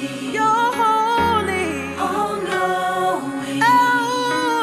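Gospel music: several voices sing held notes that shift in pitch over a steady low bass.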